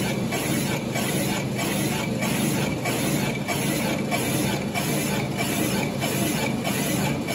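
Colchester Chipmaster lathe running steadily while turning the rim of a cast iron flywheel: a low machine hum under a gritty cutting noise that dips in an even rhythm about one and a half times a second.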